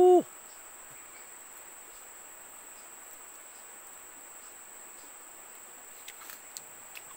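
Insects making a steady high-pitched drone throughout. Right at the start a man's short hummed "mm", rising then level in pitch, is the loudest sound, and a few faint clicks come near the end.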